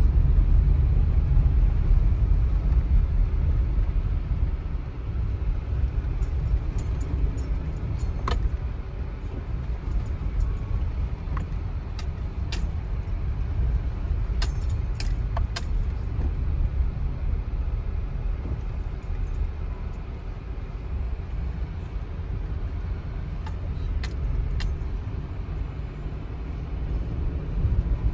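Cabin noise of a 2019 Subaru Forester driving on a soft sandy dirt trail: a steady low rumble from the tyres and engine, with scattered light clicks and rattles.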